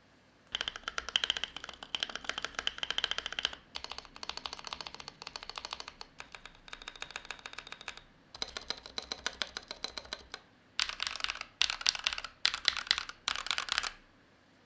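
Typing on a GMMK Pro mechanical keyboard fitted with Gazzew Boba U4T tactile switches and a brass plate: quick runs of key clacks lasting a few seconds each with brief pauses between, then four short, fast bursts near the end.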